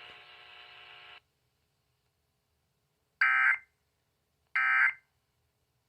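Weather radio broadcasting the Emergency Alert System end-of-message data bursts after a warning: two short, shrill electronic bursts a little over a second apart, with a third starting at the very end. Before them a faint steady hum from the radio runs for about a second and then cuts off.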